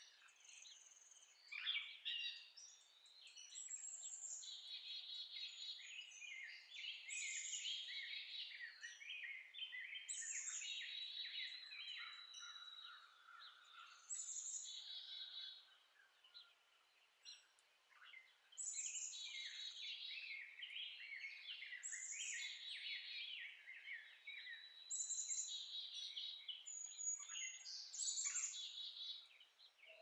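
Dawn chorus of several songbirds singing over one another: chirps, whistled notes and rapid trills. The singing thins out briefly about halfway through, then picks up again.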